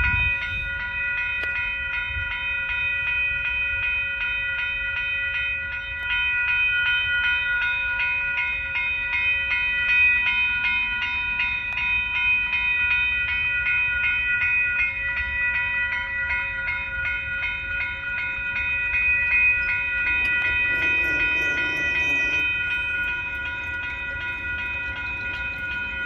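Railroad grade-crossing warning bell ringing steadily with rapid, even strokes while the signals flash and the gates are down, over a low rumble. A brief, lower sound joins for a couple of seconds near the end.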